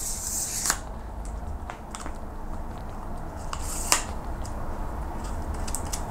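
Carbon-fibre monopod leg sections being pulled out to full length, with a sliding hiss near the start and sharp plastic-and-metal clicks of the leg locks, the loudest about four seconds in.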